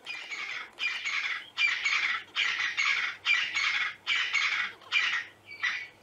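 Crested francolin calling: a rhythmic series of about eight loud, harsh, rasping phrases, each about half a second long, ending with a shorter note near the end.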